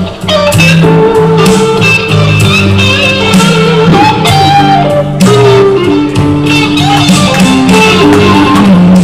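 Live blues-rock band playing loudly: a Fender Stratocaster electric guitar plays lead lines over bass notes and regular drum hits. It is a guest's poor-quality recording of amplified music.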